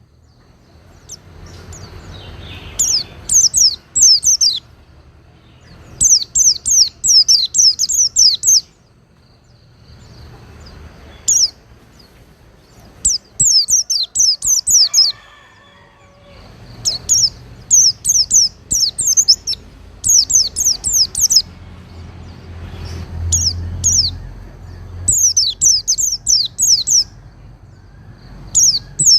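White-eye (pleci) singing: rapid high twittering phrases of quick falling notes, each lasting a second or two, repeated about eight times with short pauses between, over a faint low hum.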